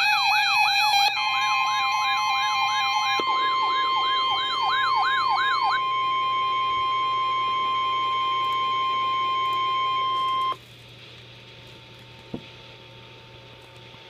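Electronic siren-like wail rising and falling about three times a second over a layer of steady alert tones, some of which drop out in steps. The wail stops about six seconds in. A single steady warning alarm tone of the kind NOAA Weather Radio sends before a warning message holds on until it cuts off suddenly about ten and a half seconds in, leaving a faint hiss and hum.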